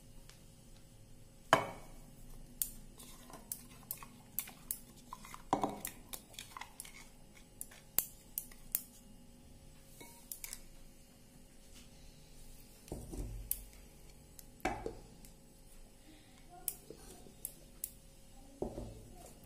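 Thick spice paste being emptied from a mixer-grinder jar into a ceramic bowl, the jar and a spoon scraping and tapping against the bowl: irregular clicks and knocks, the loudest about a second and a half in.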